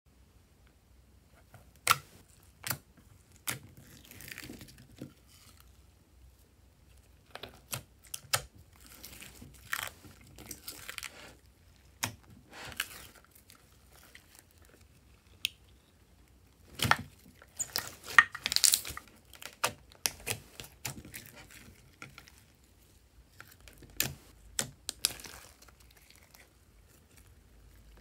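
Hands squeezing and stretching a mass of clear glitter slime with small plastic beads in it: irregular sharp pops and clicks, with stretches of sticky crackling.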